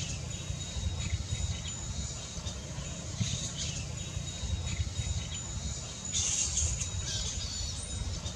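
Outdoor ambience: a steady high insect drone over a low wind rumble, with short high chirps or squeals scattered through and a longer, louder burst about six seconds in.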